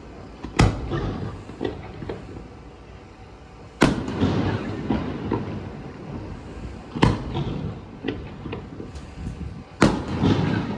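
Aerial fireworks shells bursting: four loud booms about three seconds apart, each trailing off in an echoing rumble with smaller crackles after it.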